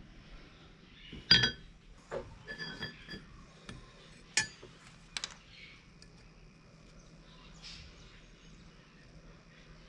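Small metal pieces clinking on a steel plate as a brass block and a steel knife blank cut from a brush cutter blade are set down and shifted. There is a sharp clink about a second in, a run of lighter clicks around two to three seconds, another sharp clink a little after four seconds and a quick double tap soon after.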